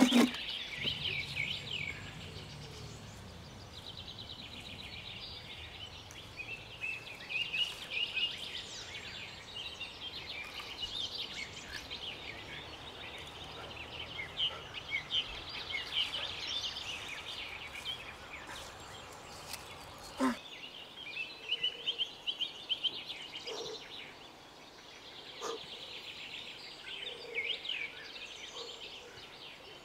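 Songbirds singing, with many overlapping quick chirps and trills. A faint low rumble underneath stops suddenly about two-thirds of the way through.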